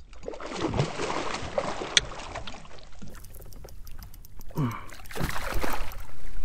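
Water splashing and sloshing against a kayak, with a single sharp click about two seconds in.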